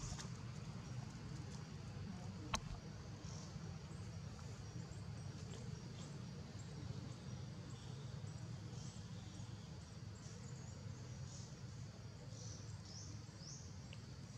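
Outdoor forest ambience: a steady low rumble with short, high chirps now and then, more often in the second half, and a faint steady high insect-like tone. A single sharp click comes about two and a half seconds in.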